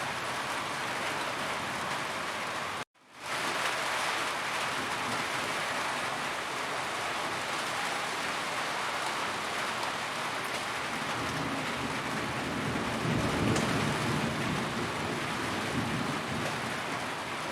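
Steady heavy rain drumming on a roof. It cuts out for an instant about three seconds in and fades back in. A low rumble of thunder swells in the second half.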